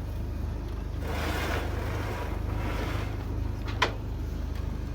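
Mekong slow boat's engine running with a steady low drone under a haze of water and wind noise that swells for a couple of seconds. A single sharp click sounds about four seconds in.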